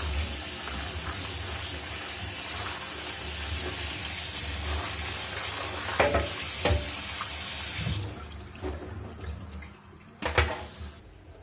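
Kitchen tap running onto soaked chickpeas in a stainless steel strainer over a metal sink while a hand stirs them. The water stops about eight seconds in, and a few knocks and rattles follow as the strainer is handled to drain.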